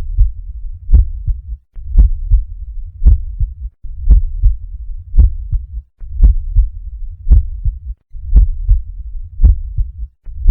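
Normal heart sounds heard through a stethoscope: a steady lub-dub, the first sound (S1) followed closely by the shorter second sound (S2), about once a second.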